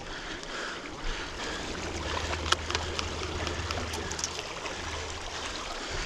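River water running steadily, with a low rumble and a few light clicks and taps.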